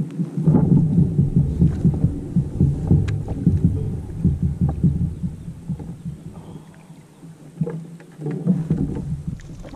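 Dense low knocks and bumps on a fishing kayak, heaviest for the first six seconds and again briefly near the end.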